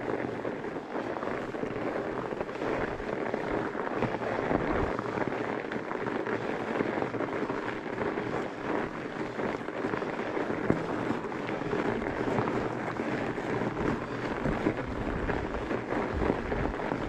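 Fat-bike tyres crunching and crackling steadily as they roll through crusty freeze-thaw snow, with a few low bumps and knocks from the bike and handlebar mount.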